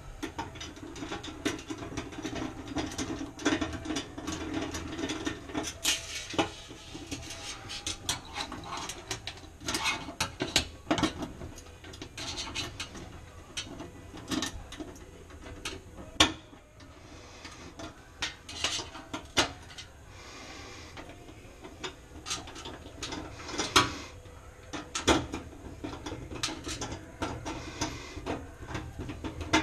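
Irregular clicks, taps and light metallic clatter of a screwdriver and small valve and pilot parts being worked against a stainless steel stovetop pan, with a few sharper knocks about halfway through and near the end.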